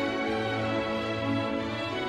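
Background music: slow, sustained orchestral chords with strings.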